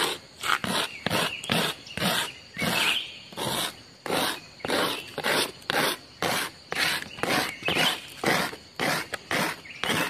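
Walking footsteps on the forest floor, a steady crunching and scraping at about two steps a second.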